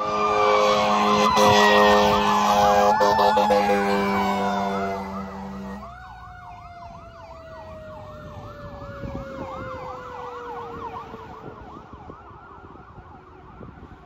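Fire engine's air horn sounding one long steady blast for about six seconds over a siren on a fast yelp. The horn then stops, and the yelp carries on more quietly with a second siren tone sliding slowly down in pitch.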